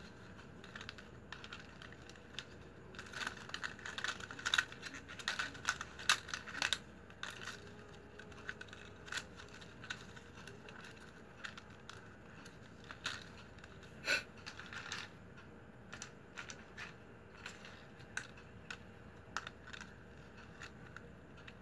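Flat strips of used plastic strapping being woven by hand: irregular crisp clicks and crinkles as strips are lifted, slid under one another and pressed into place, busiest a few seconds in and sparser later.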